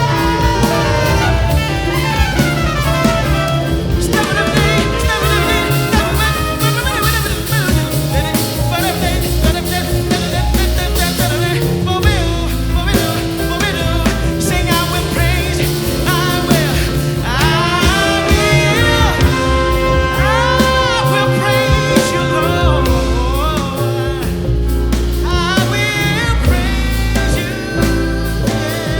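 Live jazz-style worship music: a band of drum kit, double bass and piano playing steadily, with a melodic line sliding up and down above them.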